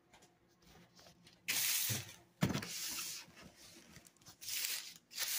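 Cardboard box being handled and its packing tape torn: four short rasping rips, the first about a second and a half in. A dull knock comes at the start of the second rip.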